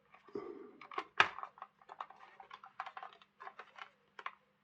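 Light plastic clicks and taps as the clip-on body shell of a Lima OO gauge model diesel locomotive is worked off its chassis, with the sharpest click about a second in.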